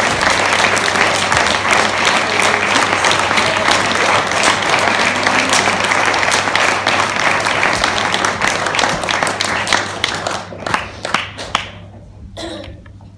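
Audience applauding, a dense patter of many hands clapping that thins to a few scattered claps about ten seconds in and dies away near the end.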